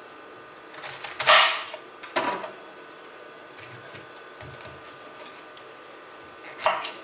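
Chef's knife cutting through a head of white cabbage on a cutting board: a loud crunch about a second in and a second one shortly after as the head is split, then quiet handling, and another crunch near the end as the slicing begins.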